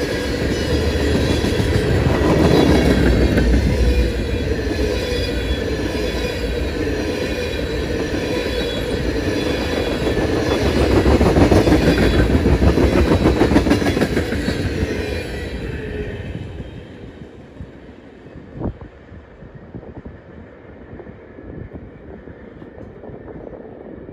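Freight train of tank cars rolling past at about 40 mph. Steel wheels clack rhythmically on the rails, with some thin high wheel squeal. The sound fades off as the last car goes by about 16 seconds in, and there is a single thump a couple of seconds later.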